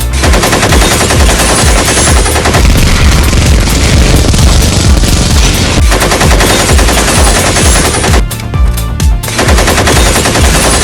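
Rapid automatic machine-gun fire, a long burst of about eight seconds, a pause of about a second, then a second burst, laid over electronic dance music with a steady beat.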